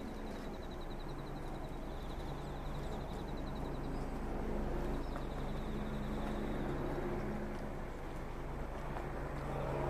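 Steady outdoor hum of machinery, with a few fixed low tones. It is broken by short runs of a high, rapid trill that come three times in the first six seconds.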